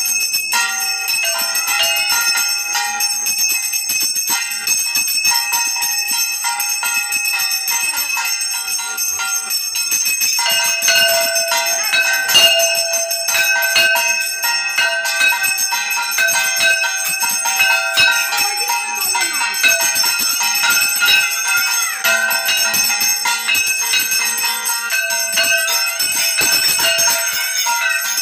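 Brass kansar, the hand-held puja gong, beaten rapidly with a stick: a dense, continuous metallic clanging ring. It gets fuller about ten seconds in.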